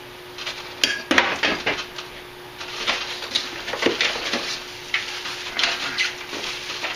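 Loose metal table-saw accessory parts clinking and clattering, with cardboard and plastic packaging rustling as they are handled and lifted out of a box: a run of irregular knocks and rattles.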